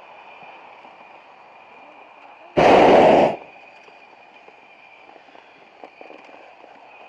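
Short blast of a hot-air balloon's propane burner, lasting under a second, starting and stopping abruptly.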